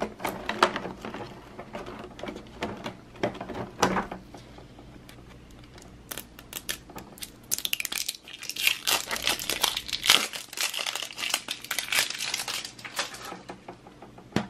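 Plastic toy packaging crinkling as a hair capsule is unwrapped, with scattered clicks of hard plastic; the crinkling is densest in the second half.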